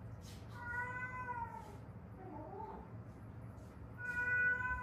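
Domestic cat meowing twice: one long meow that falls in pitch at its end about half a second in, and a second near the end.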